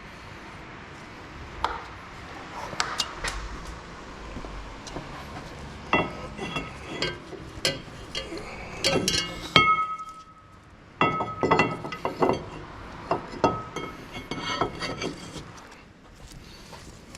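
Metal tools and parts clinking and clanking during brake rotor work, a string of sharp knocks, some ringing briefly, with a short pause about two-thirds of the way through.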